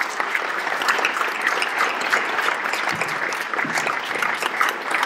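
Audience applauding, a dense, steady patter of many hands clapping at once.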